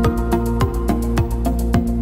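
Background music with a steady beat: held chords over a thumping beat of about two a second, with quicker ticking on top.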